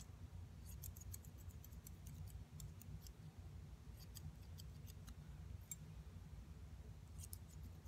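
Faint snipping of hand grooming scissors cutting a poodle's leg hair, in short quick runs of snips with pauses between, over a low steady room rumble.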